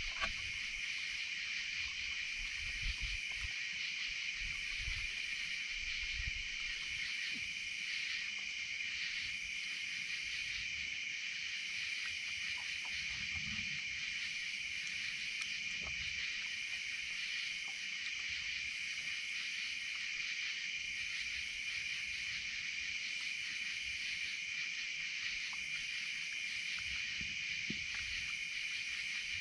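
A steady night-time insect chorus of high, even trilling fills the background. Soft low knocks come in the first several seconds, and scattered faint clicks follow, as a raccoon feeds on the wooden table.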